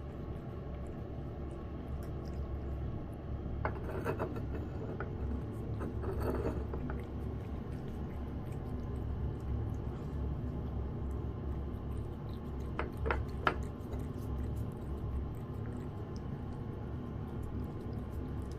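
Cat eating wet food from a dish: a few short clicks and clinks about four and six seconds in, and twice near thirteen seconds, over a steady low hum.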